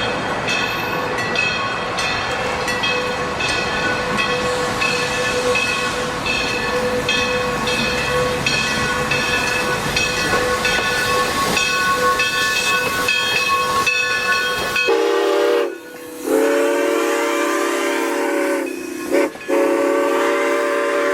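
Steam locomotive running with a steady hiss and regular chuffs. About fifteen seconds in, its whistle starts blowing a long chord-like blast, cut by two short breaks.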